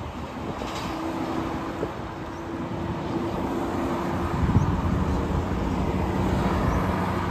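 Highway traffic at night: a vehicle passing, with engine hum over tyre and road noise that grows slowly louder. The hum drops to a lower pitch about halfway through.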